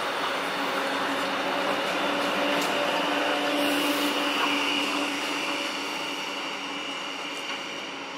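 Electric tram passing close by and pulling away, with a steady electric whine over running noise. It is loudest about three to four seconds in and then fades as the tram recedes.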